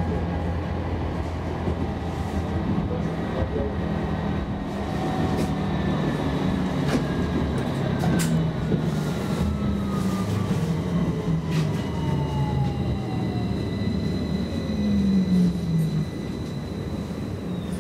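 Interior of an A32 tram running and slowing: a steady low drive hum, with a motor whine that falls steadily in pitch as the tram decelerates toward a stop. A few sharp clicks sound from the wheels on the rails, and the low hum swells briefly and then cuts off shortly before the end.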